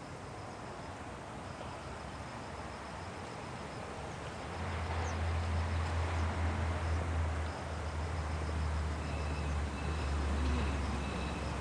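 Outdoor ambience with no speech: a low steady rumble comes in about four and a half seconds in and holds, over faint high chirping that repeats evenly.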